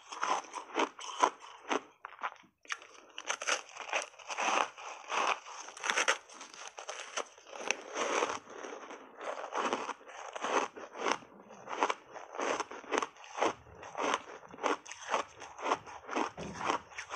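Close-miked crunching and chewing of a frozen buckwheat ice bar dusted with matcha powder, the ice breaking between the teeth in quick, irregular crunches about two a second.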